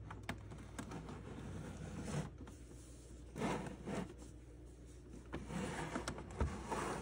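Handling noise from a Lathem 7000E time clock's plastic case being turned around on a tabletop: the case scraping and sliding and a fuzzy glove rubbing against it in several short bouts, with a soft knock near the end.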